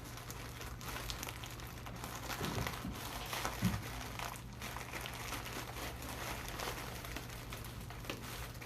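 A mailed package being opened by hand: its wrapping crinkles and rustles in many small crackles, with a knock about three and a half seconds in and a steady low hum underneath.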